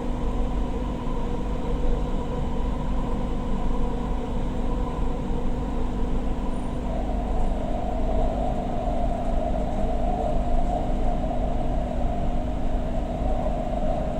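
Doha Metro train running between stations, heard from inside the carriage: a steady rumble with a motor whine that grows louder from about seven seconds in.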